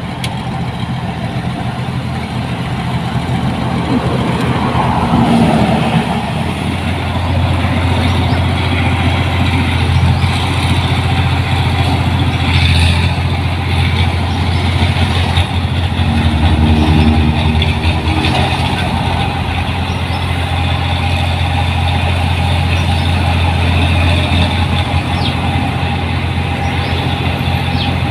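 Diesel engine of a rice combine harvester running loudly and steadily. About five seconds in the engine note deepens and grows louder, and it holds there.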